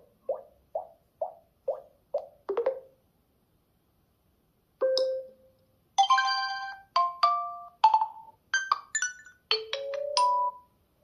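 OnePlus 10 Pro ringtones playing: the tail of one tone, a run of short plucked notes about two a second, ends near 3 s; after a pause, another tone of bright chime-like notes plays and ends on a held note.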